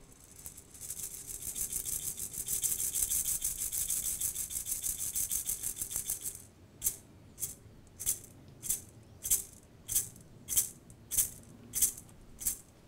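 Hand rattle shaken in a fast continuous roll for about six seconds, then struck in a steady beat of single shakes, roughly one and a half a second, as the lead-in to a Guarani chant.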